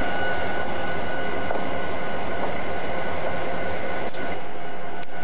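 Diesel-electric locomotive idling: a steady running hum with a steady high whine over it.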